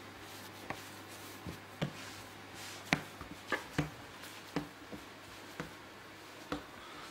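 Hands kneading a semolina dough on a wooden worktop: about ten irregular soft knocks and taps as the dough is pressed, folded and pushed against the wood, the sharpest about three seconds in.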